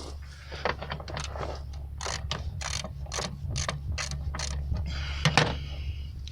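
Hand ratchet clicking in quick strokes, about four clicks a second, turning a fastener on the engine, with a louder pair of clicks near the end.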